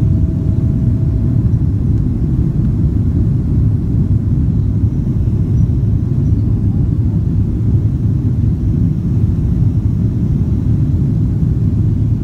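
Steady low rumble of a Boeing 777-200ER's engines and rushing air, heard inside the cabin during the climb after takeoff.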